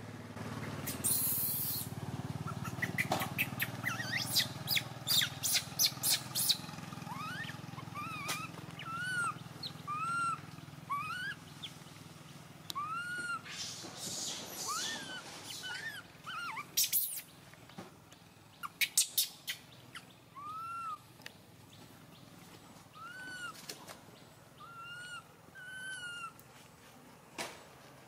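Infant long-tailed macaque crying for milk: a string of short, high cries, each rising then falling. They come thick from about seven seconds in and grow sparser toward the end. Sharp clicks and rustling come near the start.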